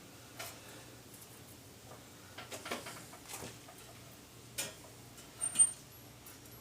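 Scattered light clicks and taps of a sheet-steel patch panel being set into and worked through a tipping wheel, with a brief high squeak near the end.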